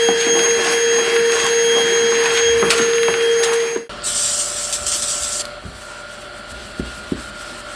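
Shop vacuum running steadily with a high whine while its nozzle sucks dust and grit off a plastic fuel tank. It cuts off abruptly about four seconds in. A short hiss follows, then the faint rubbing of a paper towel wiping the tank.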